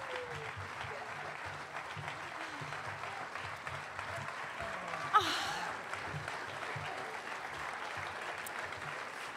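Theatre audience applauding steadily, with one sudden loud sharp sound about five seconds in.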